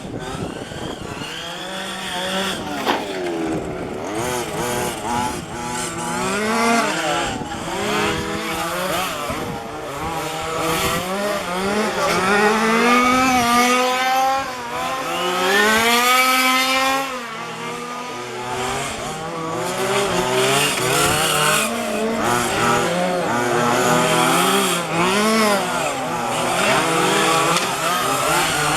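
Several 1:5-scale petrol RC cars' small two-stroke engines revving up and down as they race around the track, their pitches overlapping and rising and falling as the cars pass, loudest about halfway through.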